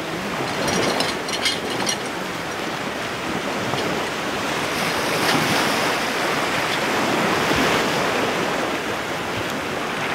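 Plastic tent sheet crinkling as it is handled, mostly in the first two seconds, over a steady rushing noise that swells and eases.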